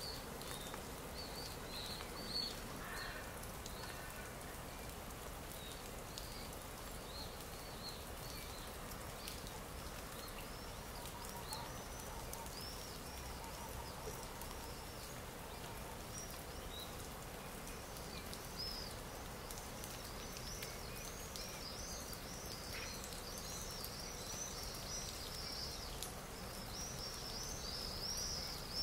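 Stock nature-sound track of songbirds chirping: many short, quick, high chirps over a steady background hiss, the chirping growing busier toward the end.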